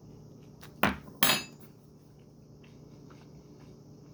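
Two short clinks of eating utensils against the plastic food bowl, one shortly before and one just after a second in, the second slightly ringing.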